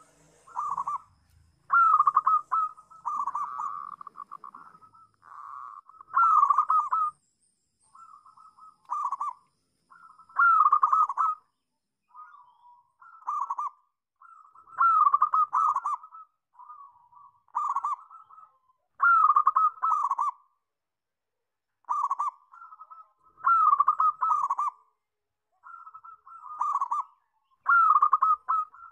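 Zebra dove (perkutut) cooing: a loud phrase of quick coo notes comes about every four seconds, with softer notes in between.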